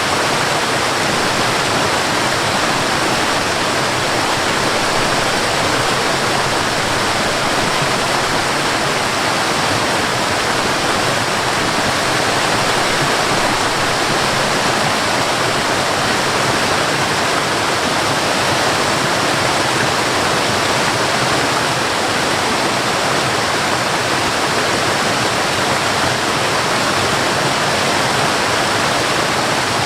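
Forest waterfall: water falling and splashing in a loud, steady rush.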